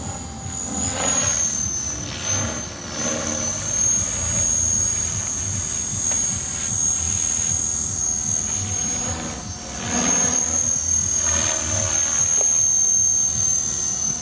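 Radio-controlled model helicopter flying overhead, a steady high-pitched whine over the rotor noise, its sound swelling and fading every few seconds as it moves about the sky.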